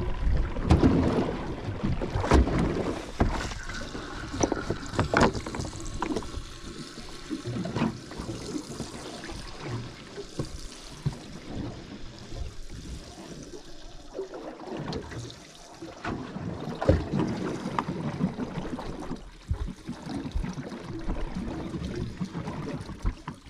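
Water slapping against the hull of a small boat drifting at sea, with wind on the microphone and irregular knocks and clatter from handling gear against the boat, loudest in the first few seconds.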